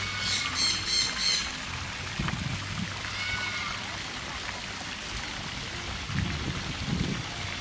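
Background voices over a steady low hum and hiss, with a short run of high-pitched calls in the first second and a half.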